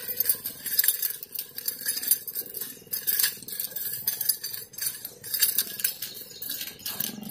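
Steel nunchaku spun in wrist rolls, its chain rattling and clinking in quick, irregular clicks.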